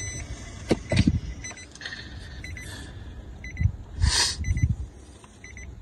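Nissan Serena's in-cabin electronic beeper sounding short groups of quick beeps every second or so, with the car in reverse gear. A few soft knocks and a brief rustle, about four seconds in, come from handling inside the cabin.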